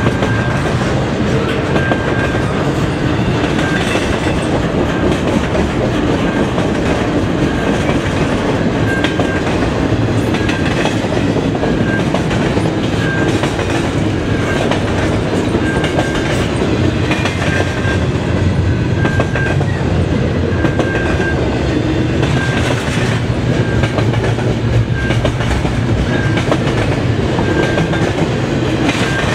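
Double-stack intermodal container cars of a freight train rolling past at track speed, a steady rumble with the clickety-clack of wheels over rail joints. A short ringing ding repeats about once a second throughout, fitting the level-crossing signal bell.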